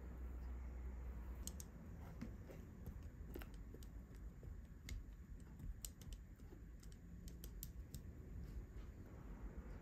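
Scattered light clicks of metal kitchen tongs knocking against a glass bowl as eggplant slices are turned in thick batter.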